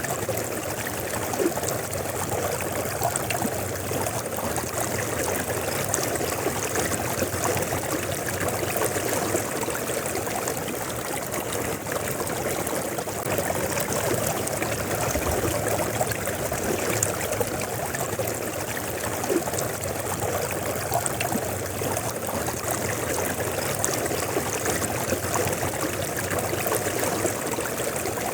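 A river flowing: a steady rush and babble of water with small splashes.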